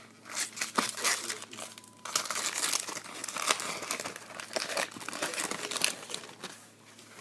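Plastic-foil wrapper of a baseball card pack being torn open and crinkled by hand: a dense crackling rustle with a brief break about two seconds in, tailing off near the end.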